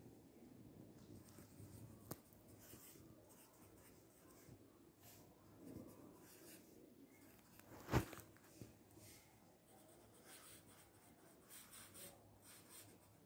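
Faint scratching of a pen writing on paper in short strokes, with one sharp knock about eight seconds in.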